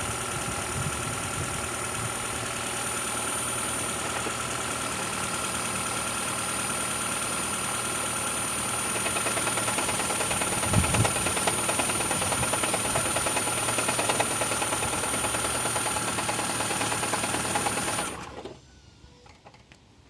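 Toyota Prius 2ZR-FXE 1.8-litre four-cylinder engine running with a fast, even clatter, the knock it is being tested for; a little oil pressure has just been lost. The engine cuts off suddenly about 18 seconds in.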